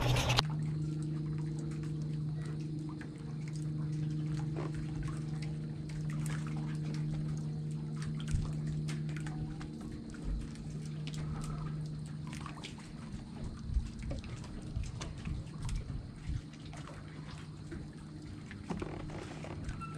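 Small waves lapping and slapping against a kayak's hull, with scattered drips and little splashes. A steady low hum sits underneath for the first twelve seconds or so, then fades.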